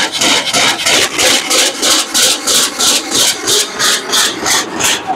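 Hand saw cutting through a wooden board, in fast, even rasping strokes at about four a second.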